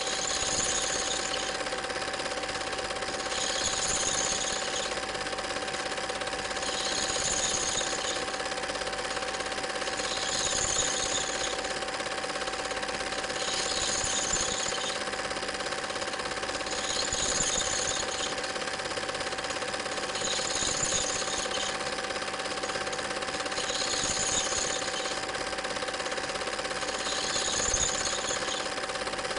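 Cine film projector running: a steady mechanical rattle with a constant hum, and a higher swish that comes round about every three and a half seconds.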